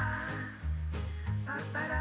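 Background music with a melody over a bass line that changes note about every half second.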